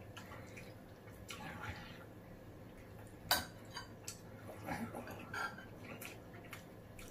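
Light, scattered clinks of metal spoons, chopsticks and a ladle against ceramic bowls, plates and a stew pot during a meal, the sharpest clink about three seconds in.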